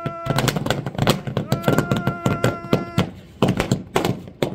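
A string of firecrackers going off in a rapid, machine-gun-like run of sharp bangs that thins out near the end. A steady held tone sounds over it twice, briefly at the start and for over a second in the middle.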